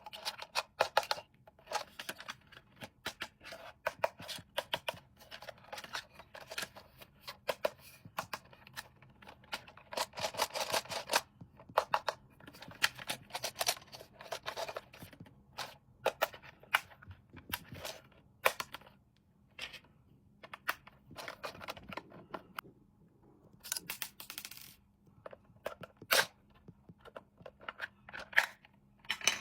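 Hands opening and handling toy packaging: a dense, irregular run of clicks, scrapes and tearing, with a short lull about three quarters of the way through.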